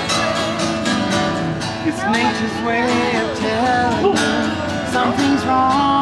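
Acoustic guitar strummed steadily, with a man and a woman singing a folk song over it.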